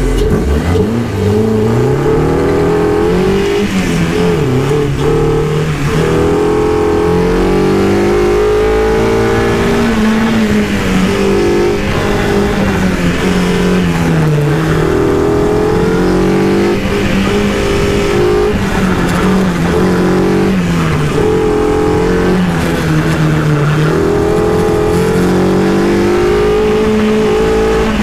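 Exocet's swapped Honda K-series four-cylinder engine pulling away from a standstill about a second in, then revving up and down over and over as it is driven hard through an autocross course, heard from the open cockpit; the pitch rises on each pull and drops on each lift or shift.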